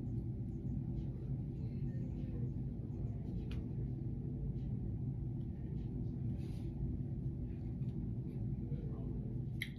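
A steady low rumble with a deep, even hum underneath.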